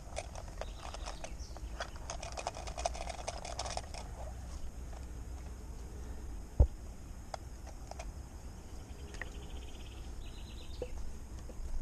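Outdoor handling noise: a patch of small clicks and rustles for the first few seconds, then a single sharp knock about six and a half seconds in, over a steady low rumble.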